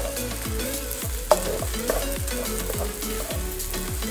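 Fried rice sizzling in a non-stick wok while a wooden spatula stirs and scrapes it, with a sharp tap of the spatula against the pan about a second in.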